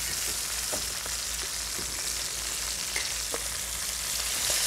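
Chicken breasts sizzling steadily as they brown in a frying pan, with a few faint ticks.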